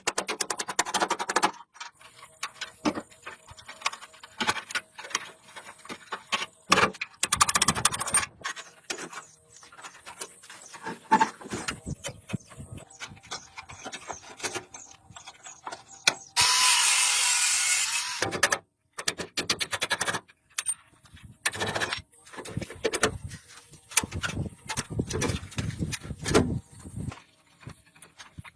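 Hand work on mechanical parts: scattered clicks, knocks and ratcheting rattles, irregular throughout. Past the middle comes a loud burst of hiss-like noise lasting about two seconds.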